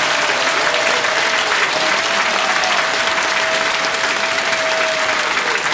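Concert audience applauding, a dense steady clatter of many hands clapping, with a faint steady tone held underneath.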